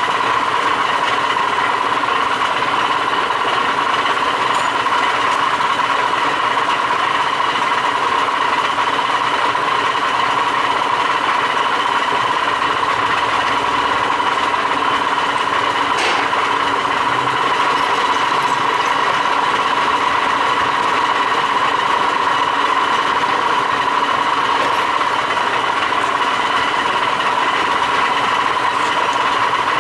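Q1313 pipe threading lathe running steadily during a threading cut, with a constant hum and whine. There is a single sharp click about sixteen seconds in.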